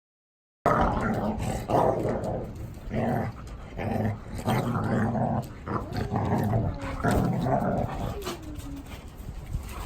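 Dog growling in a run of rough, low-pitched bursts, with a short falling whine near the end.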